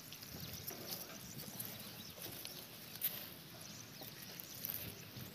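Faint outdoor ambience with scattered light clicks and taps.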